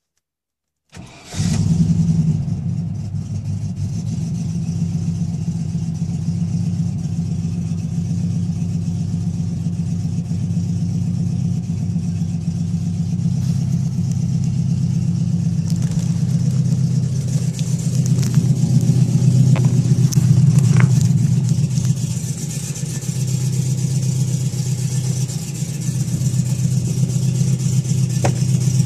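TVR Chimaera's 4.0-litre Rover V8 starting from cold on two-year-old petrol, catching almost at once about a second in with a brief flare, then settling to a steady, loud idle through a catalyst-free exhaust.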